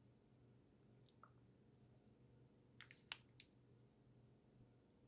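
A few small, sharp clicks and taps of parts being handled while an M.2 NVMe SSD is fitted into a drive dock, the loudest about three seconds in, over a faint steady low hum.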